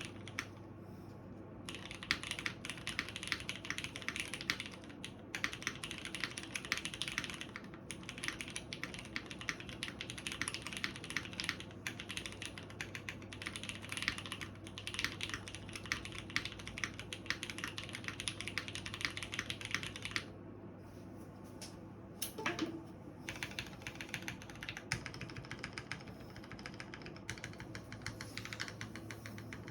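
Typing on a Ryujin mechanical keyboard with Cherry MX Brown tactile switches and GMK keycaps: fast, continuous runs of keystroke clacks, broken by two short pauses. A brief sliding squeak sounds in the second pause, about two-thirds of the way through.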